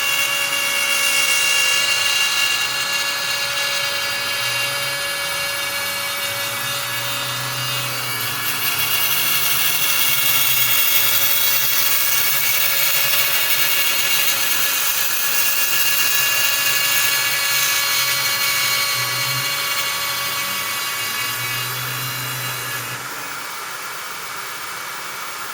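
CNC router spindle running with a steady high whine as the cutter mills a rosette channel in a wooden guitar top, a lower motor hum rising and falling as the machine traces the slot. The higher whine drops away near the end.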